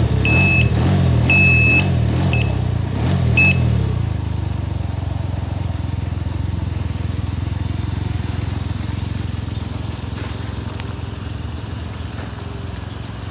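Can-Am Ryker 900's Rotax 900 ACE three-cylinder engine running. Several short, high electronic beeps sound over it in the first few seconds. It then settles into a steady idle that slowly grows a little quieter.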